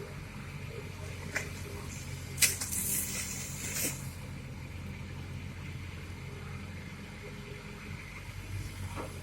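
Excavator's diesel engine running steadily. A sharp, loud hiss cuts in a little over two seconds in and lasts about a second and a half.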